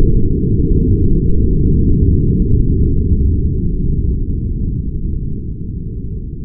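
Slowed-down audio of a .357 SIG pistol shot and a water jug bursting, heard as a loud, deep rumble with no high end that slowly fades.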